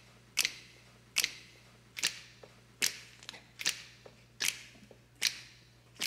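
Sharp percussive clicks keep a steady beat, about one every 0.8 seconds, each with a short echo, with fainter ticks in between. A low steady hum runs underneath.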